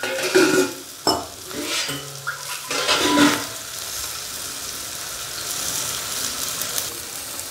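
Chopped yam, shallots and tomato frying in oil in a metal kadai, with the chilli and turmeric powder just stirred in. A metal slotted ladle scrapes and stirs through the pan during the first three seconds or so, then a steady sizzle carries on.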